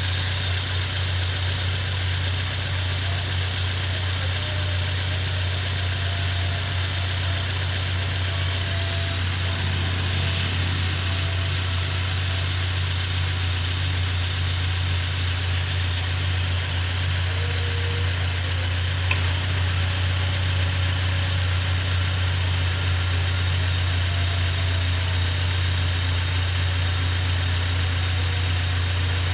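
Car engine idling steadily, a constant low hum under an even hiss.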